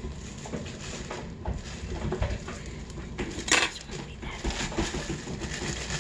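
A thin plastic bag being handled and opened, crinkling and rustling, with scattered small clicks and clinks. The sharpest crackle comes about three and a half seconds in.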